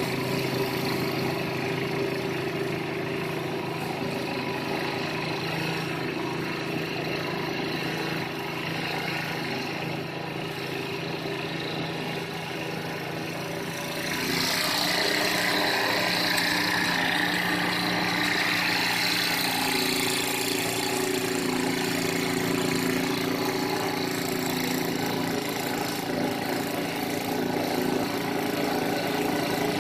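Craftsman two-stage snowblower's 5 hp Tecumseh engine running steadily; about halfway through the sound gets louder with a rushing hiss added over the engine note.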